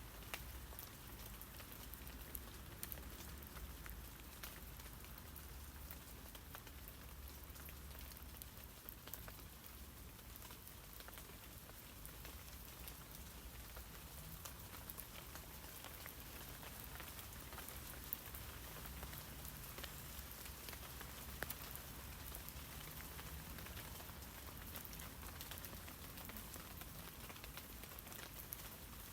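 Steady rain pattering on tree leaves, many small drop ticks over an even hiss, with a low rumble underneath.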